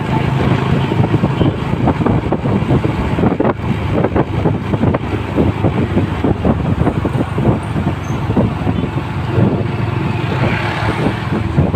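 Dual-sport motorcycle engine running while riding down a road, heard from the rider's seat as a continuous, uneven rumble.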